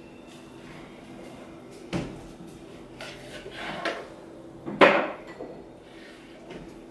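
A kitchen utensil scraping and knocking against a frying pan as food is served out of it into bowls. There are a few separate knocks and scrapes, the loudest about five seconds in, over a low steady hum.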